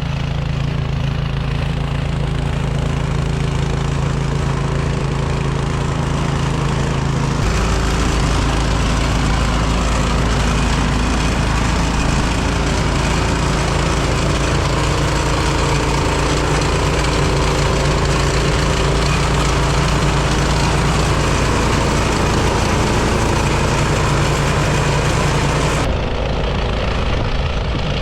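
Craftsman gas snowblower engine running steadily under load. Its sound gets louder and fuller about seven seconds in and eases back a couple of seconds before the end.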